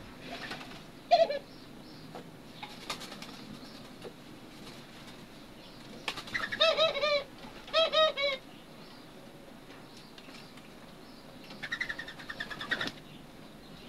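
Captive doves calling as they feed: a sharp short call about a second in, then two bursts of quick, rising-and-falling calls around six to eight seconds in, and a rasping flurry near the end.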